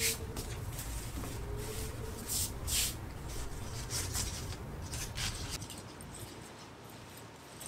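Cut eucalyptus and fern sprigs rustling, and a hand brushing over floor tiles, as the greenery is laid out. The sound comes as several short, sharp rustles over a low steady rumble that fades out near the end.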